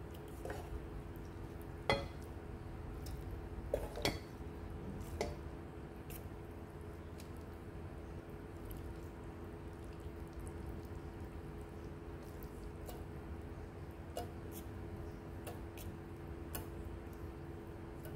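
Light clinks and taps of a metal pot and a wooden spoon against a metal plate as noodles are tipped out of the pot. The sharpest knocks come about two and four seconds in, over a steady low hum.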